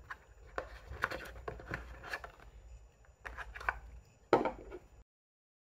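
Light taps and rustles of a hand lifting a wall charger out of a cardboard box insert, with one louder knock about four seconds in. The sound cuts to dead silence about five seconds in.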